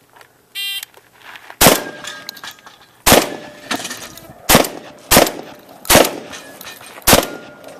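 A short electronic shot-timer beep, then seven shotgun blasts in quick succession, each followed by the ring of a steel target being hit.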